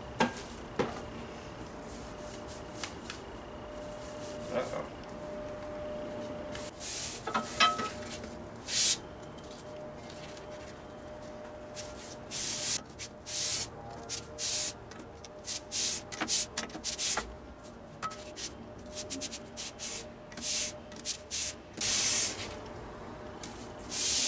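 Cast-iron sole of a Stanley Bailey No. 7 hand plane being pushed back and forth on 220-grit sandpaper over glass, wetted with Windex: a scraping rasp with each stroke, about one stroke a second from around the middle on. The sole is being flattened (lapped).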